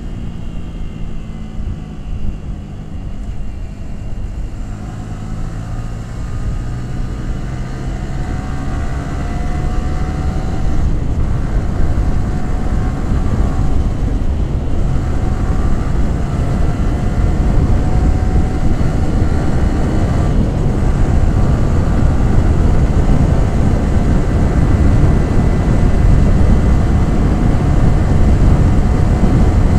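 Yamaha R15 V3's 155 cc single-cylinder engine and exhaust under way, its pitch slowly rising as the bike gathers speed, with short breaks a few times. Rushing wind grows louder along with it.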